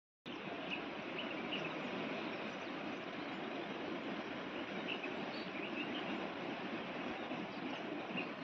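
Rural outdoor ambience: a steady, even hiss with a few faint, short bird chirps scattered through it.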